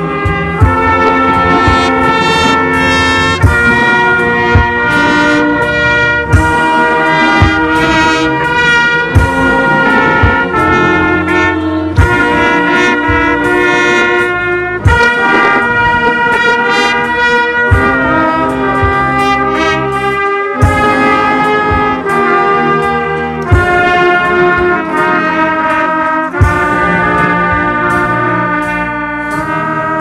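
Trumpet playing a tune close up among other brass instruments, holding sustained notes, with sharp percussive hits now and then.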